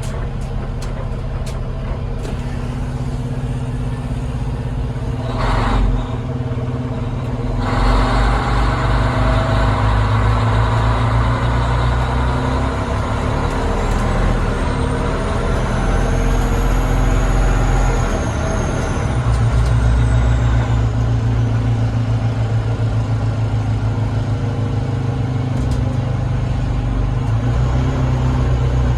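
Diesel engine of a ladder tower fire truck running, heard from inside the cab. There is a short hiss about five and a half seconds in, and the engine pulls harder from about eight seconds. A faint high whine rises and falls in the middle.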